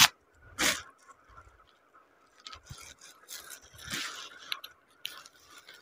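A saree being unwrapped from its plastic packaging and unfolded: intermittent crinkling of plastic and rustling of cloth, with short rustles about half a second in and around four seconds in.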